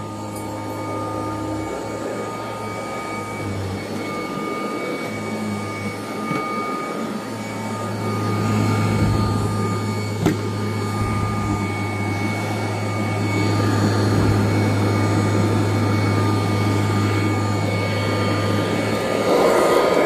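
Kirby Heritage II Legend upright vacuum cleaner running steadily while vacuuming, a constant motor hum with a thin steady whine above it, a little louder from about eight seconds in.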